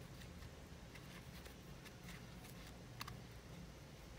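Faint clicks and rustles of a metal crochet hook working cotton yarn, with one sharper click about three seconds in.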